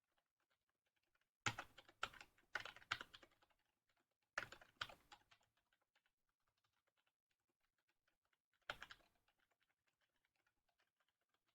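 Computer keyboard typing in three short bursts of sharp keystrokes: the longest run first, then a couple of strokes, then a single one near the end, with faint key taps between.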